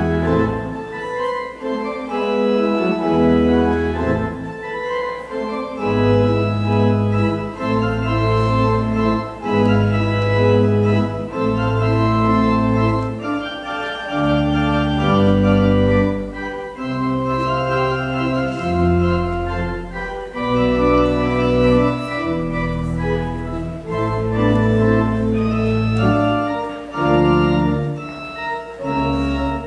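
Organ playing slow, sustained chords over a low bass line, with the chords changing every second or two.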